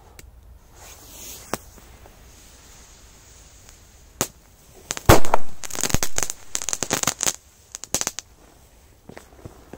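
Korsar-4 effect firecracker going off: a couple of single sharp cracks, then a loud bang about five seconds in, followed by a rapid string of cracks and pops that lasts about three seconds and thins out.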